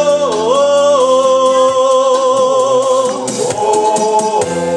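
Man singing into a microphone over a pop backing track: one long held note with a short dip in pitch near the start, then a second, shorter note about three and a half seconds in.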